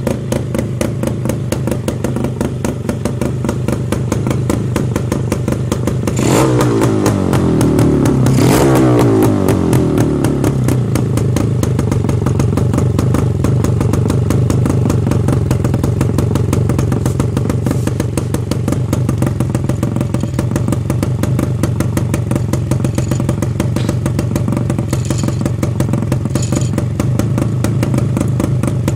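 Yamaha RX100's two-stroke single-cylinder engine idling loudly through its exhaust, revved twice about six and eight seconds in, each time rising and falling back to a steady idle.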